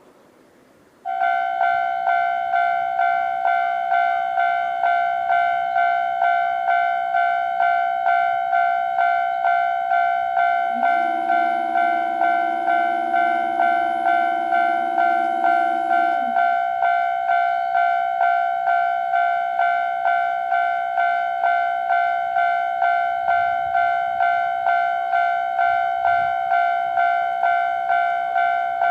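Japanese level crossing's electronic warning bell starting up about a second in, then ringing its steady repeating high two-tone ding about twice a second, with its high part pitched a little higher than usual. From about 11 to 16 s a train horn sounds one long two-note blast over it.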